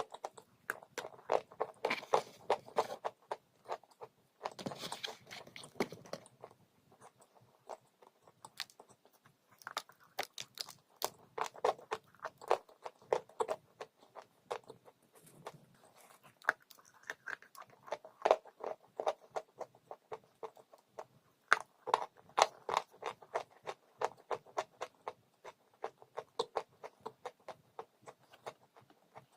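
Someone biting and chewing crunchy dry chalk, many sharp crunches in bouts with short pauses between them.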